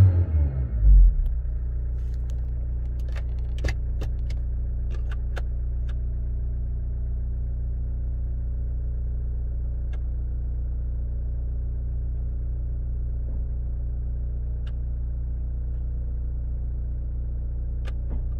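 Hyundai Terracan's 2.9-litre four-cylinder diesel falling back from a rev of about 3000 rpm in the first second, then idling steadily at about 800 rpm, heard inside the cabin. A few faint clicks come a few seconds in.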